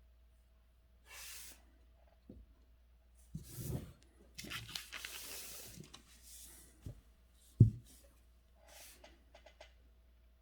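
Calligraphy writing and paper handling: soft swishes and rustles of brush and paper come and go, with a few dull thumps, the loudest about three quarters of the way through.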